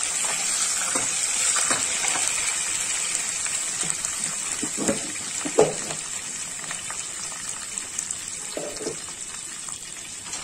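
Curry leaves sizzling and spluttering in hot tempering oil: a steady, hissing sizzle with scattered crackles and a few sharper pops, the loudest about halfway, slowly dying down.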